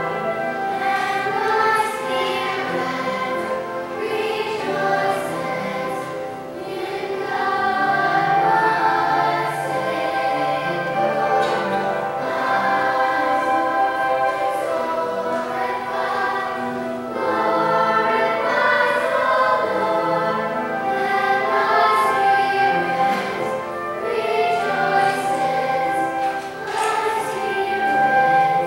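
A choir of children and adults singing, holding long chords that shift from phrase to phrase.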